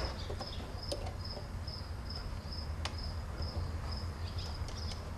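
A cricket chirping steadily at about two to three chirps a second, with a low hum underneath and a couple of faint clicks.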